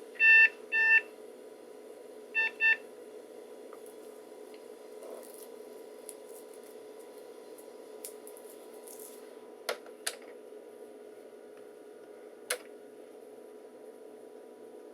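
Compaq SLT/286 laptop's built-in speaker beeping as it starts up after its memory count: two beeps, then two shorter, quicker beeps a moment later. A few sharp clicks follow later over a steady hum.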